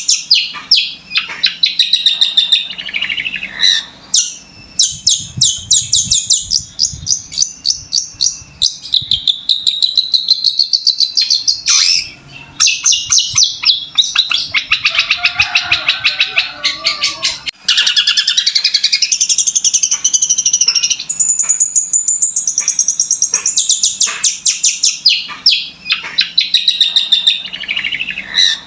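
Long-tailed shrike (cendet) singing a fast, continuous run of high chirps and trills, mimicking lovebird and house sparrow calls, with a couple of brief breaks.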